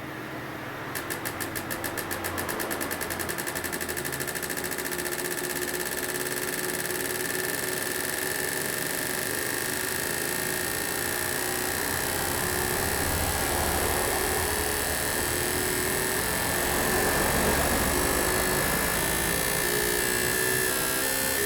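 Four cleaned fuel injectors on an injector test bench, pulsing rapidly and evenly as they spray during an equalization and flow test, over the bench's steady pump and motor hum. The rapid clicking starts about a second in.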